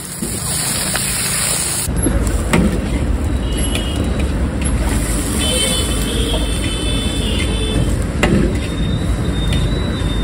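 A steady hissing wash for about two seconds, then a sudden change to the even rumble of roadside traffic, with a few faint horn toots.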